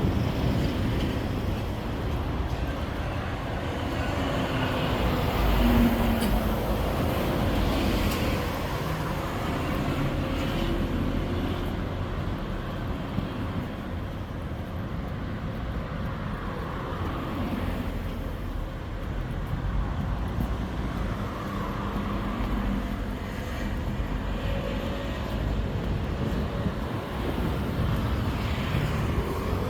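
Road traffic on a city street: vehicles running past in a steady wash, with one passing louder about six seconds in.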